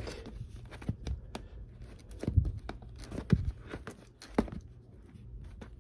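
Shrink-wrapped vinyl LP sleeves being flipped through by hand, rustling and crinkling, with scattered sharp taps and clacks as the records knock against each other and fall back.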